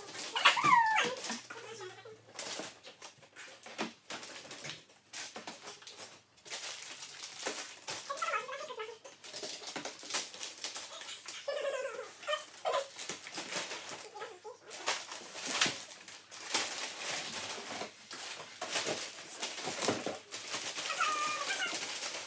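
Wrapping paper crinkling and cardboard boxes rustling and scraping as wrapped presents are handled and packed into the boxes. A few short, high, whining sounds that glide downward come through, the loudest just after the start.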